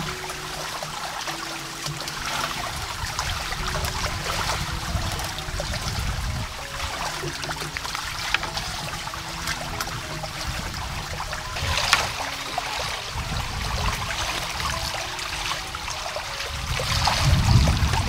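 Water trickling and splashing, louder about twelve seconds in and again near the end, with a faint melody of short soft notes underneath.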